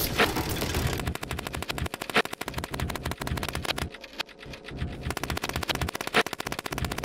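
A fast, even rattle of sharp clicks, like a burst of automatic gunfire, laid over an edited title sequence. It thins out about four seconds in, then picks up again.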